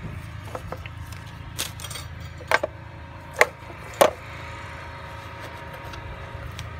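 Metal tools and parts being handled and set down on the plastic engine cover: a handful of sharp separate clacks and clinks, the loudest about two and a half, three and a half and four seconds in.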